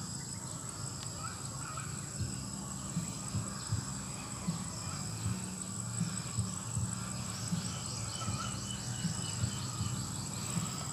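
Steady high-pitched insect chorus, with a faster chirping trill joining in for a few seconds midway, over soft rustling and handling knocks.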